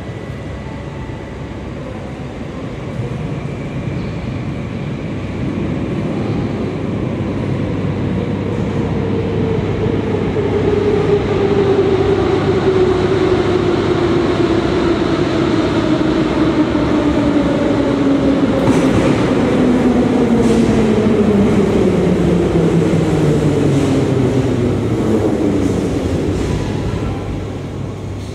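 Moscow Metro retro train of vintage type A cars arriving at a station: its rumble grows as it approaches through the tunnel, and a whine falls steadily in pitch as the train slows to a stop near the end.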